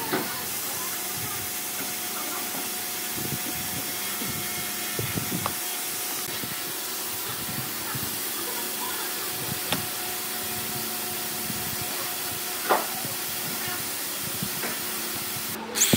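A steady, even hiss with a faint hum beneath it, broken by a few light taps and clicks as a steel square and pencil are set down and moved on the wood; the sharpest tap comes about three-quarters through.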